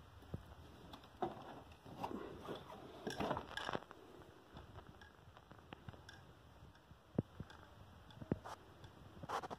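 Cardboard box with a clear plastic window being handled and moved: scattered crinkles and rustles, a burst of them a few seconds in and again near the end, with a couple of sharp knocks in between.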